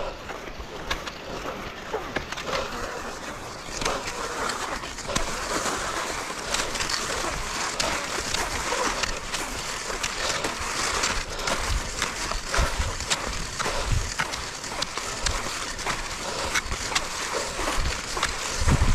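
Skis sliding and scraping over snow: a continuous hiss with scattered clicks, growing fuller about four seconds in.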